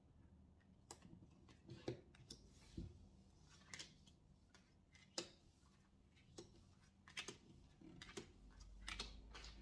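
Tarot cards being dealt and laid down on a table one by one: a string of faint, irregular taps and clicks of card against card and tabletop.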